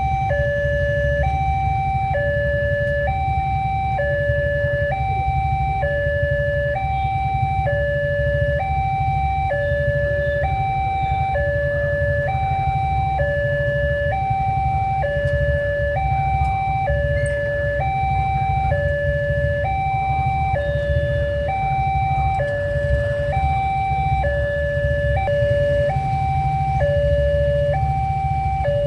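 Railway level-crossing warning alarm sounding continuously: an electronic two-tone signal alternating high and low, about one high-low pair a second, warning that a train is approaching and the barrier is closed. A steady low rumble runs underneath.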